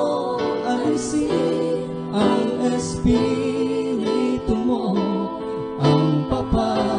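Worship song: a woman singing into a microphone over guitar accompaniment.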